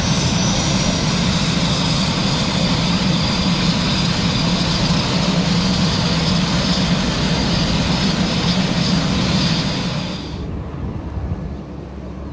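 Beechcraft King Air 350's twin turboprop engines running on the ground: a steady propeller drone with a high turbine whine that slides slightly lower in the first second. About ten seconds in the sound cuts abruptly to a quieter, duller noise.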